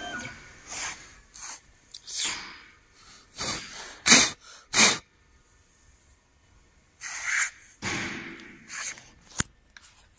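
A series of short blasts of blown air, about ten in all, clearing aluminium chips off a freshly engraved plate, with a sharp click near the end. The CNC router spindle's whine dies away at the very start.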